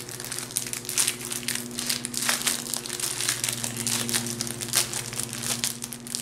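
Crinkling of the plastic wrapping around a strip of small bags of diamond-painting drills as it is handled: an irregular, continuous run of rustles and crackles over a faint steady hum.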